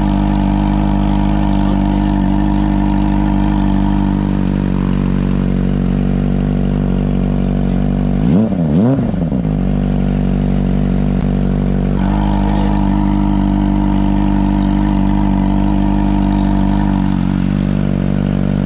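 Kawasaki ZX25R's 250 cc inline-four idling steadily through an aftermarket DBS muffler, with one quick throttle blip about eight seconds in that rises and falls back to idle.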